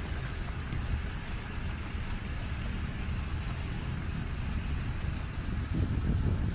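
Steady low rumble of street traffic and car engines, mixed with wind noise on the microphone in blowing snow.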